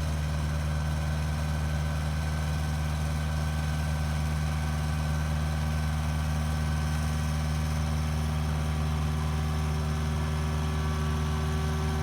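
Kubota U55 mini excavator's diesel engine running steadily while its arm reaches out with a 3,000-pound block, with a thin steady higher whine joining about a second in.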